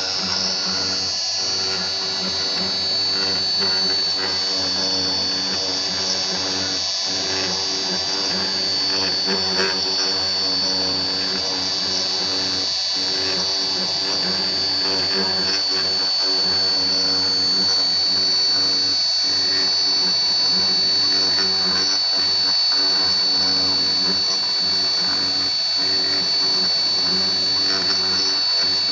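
Homemade CNC mill's spindle running with a steady high whine while a 1/16-inch ball-nose end mill makes a light finishing pass on a metal workpiece.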